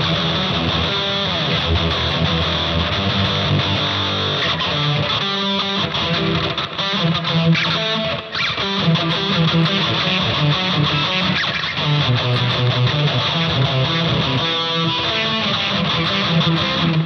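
Electric guitar played steadily through a combo amplifier's newly fitted speaker, picked up by a microphone in front of the amp. There is a brief dip in loudness a little past eight seconds in.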